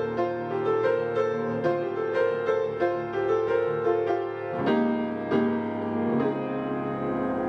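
Piano playing a melody over sustained chords, with new notes struck about every half second.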